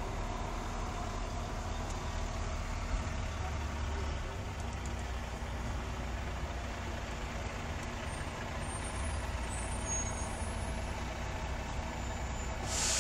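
Steady low rumble of a running engine, with a short hiss near the end.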